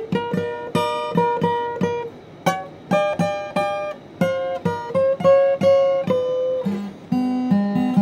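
Acoustic guitar playing a blues passage with no singing: quick plucked notes and strums, with lower bass notes coming in near the end.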